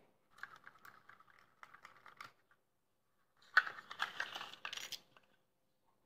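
Plastic parts of an SG907 Pro drone clicking and rattling as its body is handled and worked apart: a patter of light clicks, then a louder burst of clatter about three and a half seconds in.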